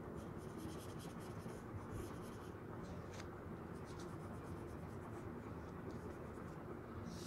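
Graphite pencil scratching on drawing paper in quick, short shading strokes: a dense run for the first couple of seconds, then sparser strokes.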